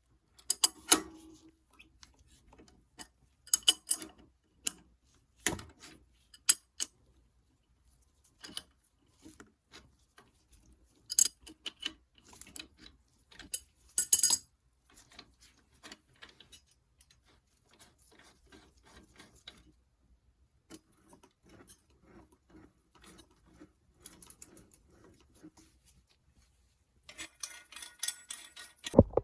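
Metal tools and bicycle parts clinking and clicking in scattered handling knocks, with a rapid run of mechanical ticks near the end.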